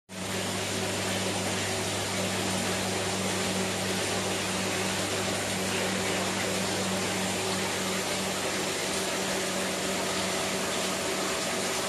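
Aeration air pump humming steadily, with a constant hiss of air bubbling up from air stones in tubs of water.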